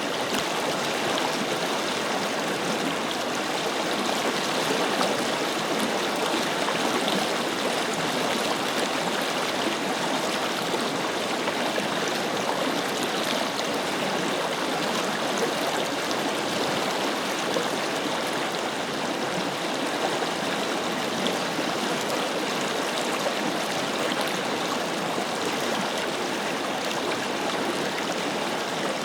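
Forest river flowing steadily over rocks, an even rushing and babbling of water.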